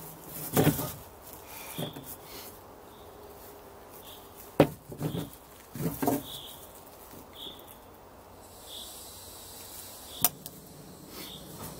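Clicks and knocks of handling a gas canister and fitting it to a camping stove's fuel hose, with two sharp clicks, one a little before the middle and one near the end.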